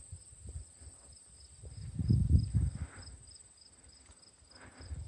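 Insect chorus in the grass: a steady high buzz with a pulsing chirp a little over twice a second. Low bursts of wind rumble on the microphone come and go, loudest about two seconds in.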